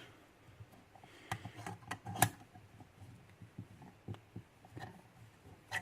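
Faint, scattered small clicks and taps of metal lock parts being handled and fitted back together, with the sharpest click a little after two seconds in.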